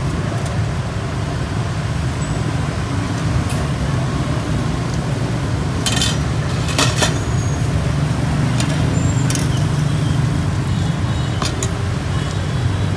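Steady low rumble of street traffic, with a few sharp clicks of metal tongs against a stainless steel bowl as chopped roast pork is scooped into a baguette, the loudest clicks about six and seven seconds in.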